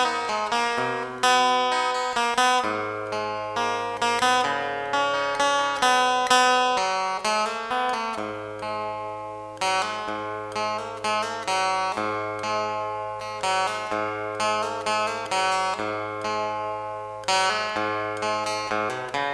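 Background music: acoustic guitar playing picked notes over a steady bass line.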